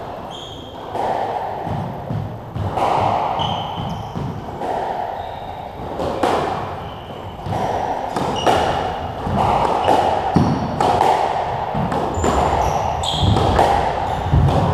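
Squash rally: the ball cracks off rackets and the walls again and again at an irregular pace, with short high squeaks of court shoes on the wooden floor in between.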